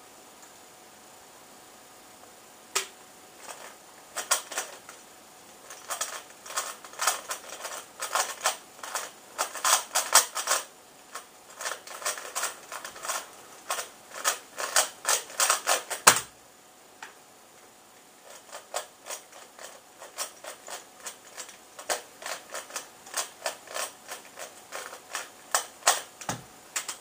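A 3x3 Rubik's cube being turned fast by hand: quick runs of plastic clicking and clacking as the layers snap round. A louder knock comes about sixteen seconds in, followed by a short pause before the turning starts again.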